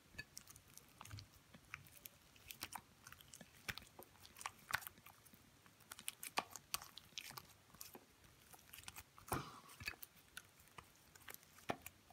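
Homemade slime being kneaded and squeezed by hand, making faint, irregular squishing and small clicking pops as the sticky slime pulls and presses.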